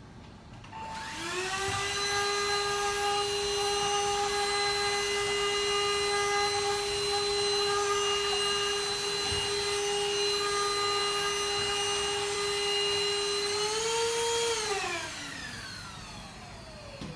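TINTON LIFE cordless stick vacuum cleaner switched on: its motor whine climbs to a steady pitch within about a second and runs evenly for about twelve seconds. Near the end the pitch edges up briefly, then the motor is switched off and winds down.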